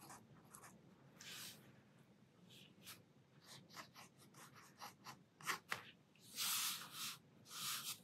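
Fine-tipped Sakura Pigma Micron pen scratching faintly on watercolour paper in many short strokes as a sketch is inked, with two longer strokes in the last two seconds.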